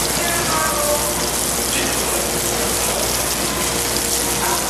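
White sea bass fillets sizzling steadily as they sear in hot oil in a sauté pan.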